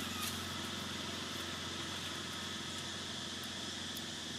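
Steady outdoor ambience: a constant low hum like a distant idling engine, under a steady high-pitched drone of insects.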